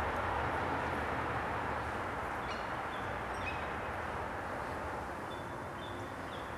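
Steady, distant engine rumble that slowly fades. A few faint, high bird chirps come about two and a half to three and a half seconds in and again near the end.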